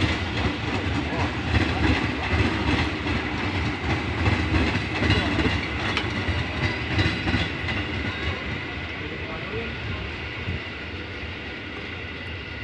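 Electric commuter multiple-unit train passing, its wheels clacking over rail joints with a steady rumble. The sound fades away once the last car has gone by, about halfway through.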